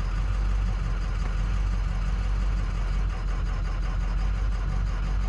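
Ford 6.0 L Power Stroke V8 turbodiesel idling steadily with its number 4 injector switched off by a scan tool in a cylinder cutout test, the idle dropping as that cylinder stops firing. The engine has a cylinder 5 misfire that makes the truck shake.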